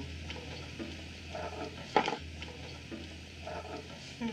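Hushed bar-room quiet with a steady low hum and a few faint short sounds. About two seconds in there is a single sharp knock, like a glass set down on a table.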